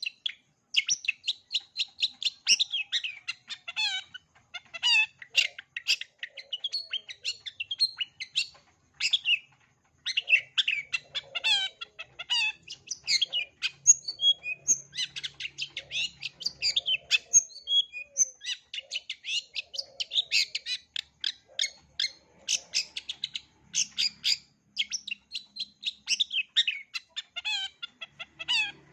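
Long-tailed shrike singing a rapid, chattering song of quick chirps and short gliding notes, its repertoire full of mimicked calls, with hardly a pause.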